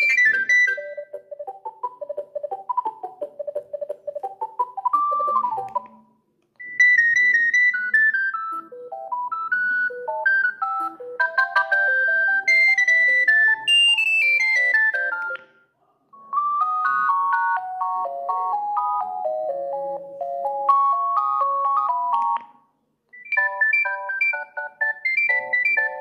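Alcatel OneTouch 320 mobile phone playing its built-in ringtone melodies through its small speaker: simple electronic tunes of quick single notes. One tune gives way to the next after short breaks about 6, 15 and 22 seconds in.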